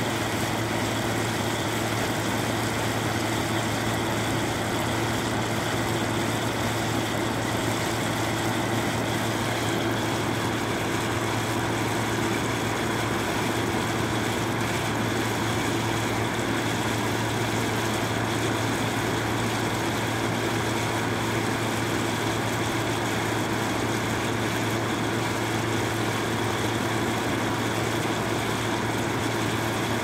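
Window air conditioner running: a steady, unchanging motor hum under the rushing noise of its fan.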